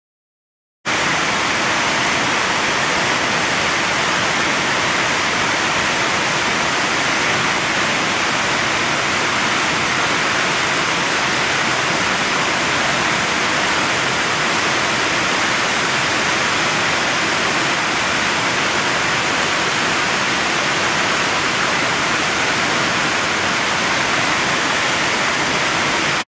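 Steady rushing of falling water from a waterfall, an even, unbroken roar. It cuts in suddenly about a second in and cuts off suddenly at the end.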